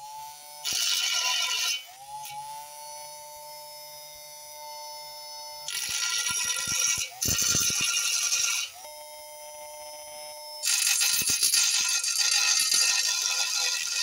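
Homemade grinder made from a small DC motor and an abrasive disc grinding down a steel lathe bed in four passes: a harsh grinding hiss each time the disc bites the steel. In between, the motor whines on its own, its pitch rising as each pass ends.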